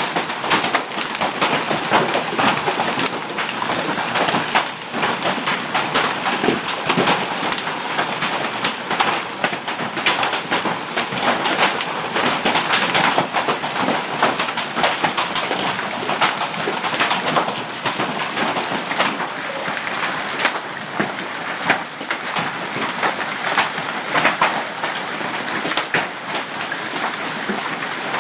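Hailstorm with heavy rain pelting down: a dense, steady patter dotted throughout with many sharp individual strikes of hailstones.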